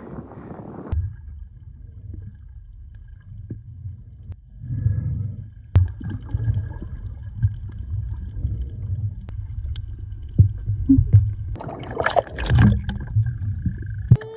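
Snorkeling heard underwater through a phone in a waterproof case: splashing in the first second, then a muffled low rumble of moving water with bubbling and small clicks. A louder splash comes about twelve seconds in.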